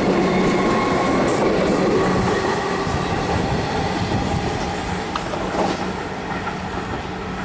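Suburban electric train pulling away past the platform: steady rumble of wheels on the rails with an even electrical hum, slowly fading as the last car passes.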